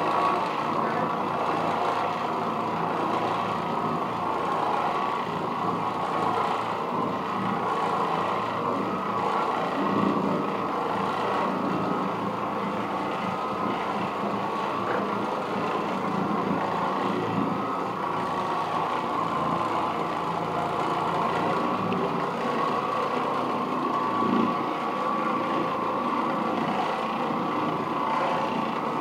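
Oreck Orbiter orbital floor machine running with a steady motor hum while its bonnet pad works over carpet.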